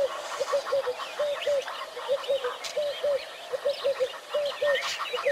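Birds calling: one keeps up a steady series of short low notes, mostly in pairs about twice a second, while other birds chirp and whistle higher over it.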